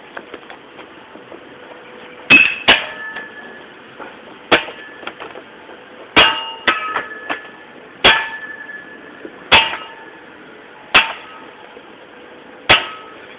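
A shovel repeatedly bashing metal scrap. Each blow is a sharp clang with a short ringing tone, about nine blows, beginning about two seconds in and coming roughly every second and a half.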